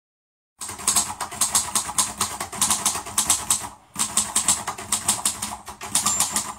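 Rapid typing clatter, keys struck several times a second in a quick run, with a short break a little past the middle.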